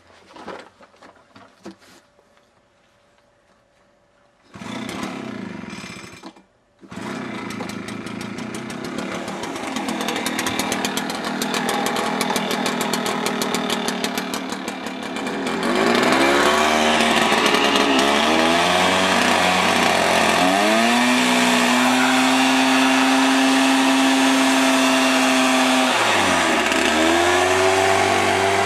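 Two-stroke engine of a 60cc Echo backpack leaf blower starting: it runs briefly, cuts out, then catches and keeps running. Partway through it gets louder and is revved up and down several times, with a few seconds held at steady high throttle between revs.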